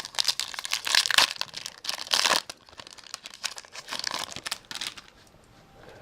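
Foil Pokémon card booster pack wrapper being crinkled and torn open by hand, a dense crackling that is loudest in the first two and a half seconds, then softer and sparser.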